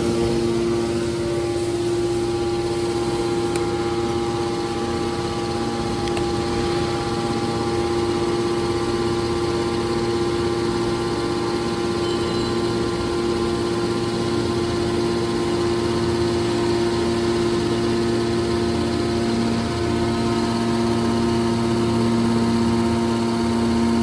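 Hydraulic power unit of a scrap metal baler running steadily with no load: the electric motor and hydraulic pump give a constant hum with several steady tones, and nothing changes.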